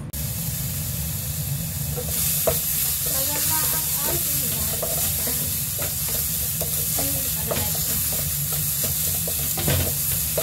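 Chopped ginger and garlic sizzling as they sauté in a nonstick wok, stirred with a wooden spatula that scrapes and knocks against the pan. The sizzle grows louder about two seconds in.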